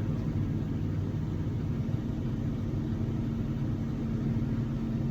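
Vehicle engine running with a steady low rumble and a constant hum.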